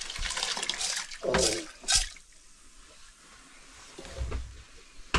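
Grain poured from an aluminium bowl into a pot of water, a hissing pour for about a second, followed by two sharp metal knocks of bowl against pot about a second and a half and two seconds in.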